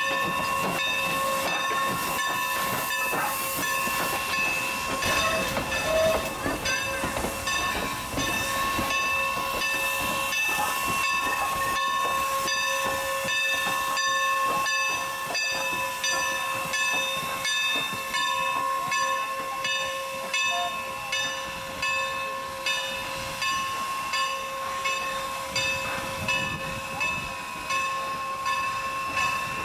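Steam locomotive No. 475 working, with steam hissing and a steady high whine. In the last third a rhythmic beat of about one pulse a second comes in.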